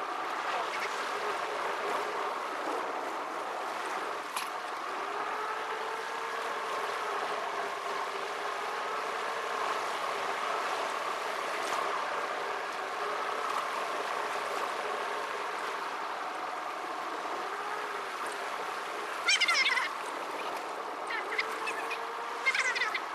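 Car engine and road noise heard from inside the cabin, sped up fourfold so that it comes out as a high, wavering, honking drone. Near the end there are two short, louder, higher-pitched bursts.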